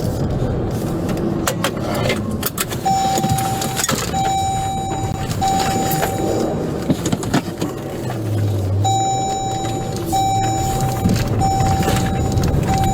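Police vehicle noise during a slow pursuit, with a steady electronic beep sounding in repeated pulses about a second long from about three seconds in, pausing briefly in the middle and then resuming.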